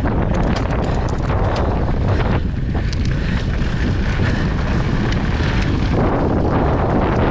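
Mountain bike ridden fast down a dirt trail: wind buffeting the GoPro's microphone, with tyre roar on dirt and scattered rattles and knocks from the bike over the bumps.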